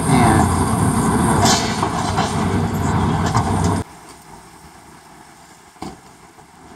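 Heavy diesel demolition machinery running loud, cut off abruptly about four seconds in. After the cut there is faint outdoor background with a single short knock.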